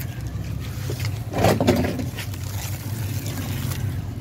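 A dry crumbly chunk soaking and breaking up in a tub of water, fizzing and crackling, with a louder wet burst about a second and a half in. A steady low rumble runs underneath.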